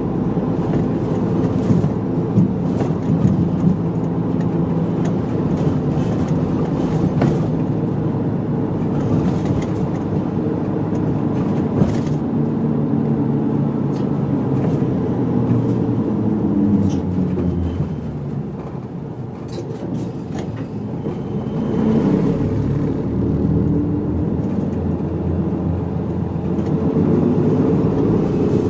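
A mid-size city bus's diesel engine and drivetrain heard from inside the cabin while driving, the engine note shifting as it pulls and changes gear. It eases off around eighteen seconds in and picks up again a few seconds later, with light cabin rattles now and then.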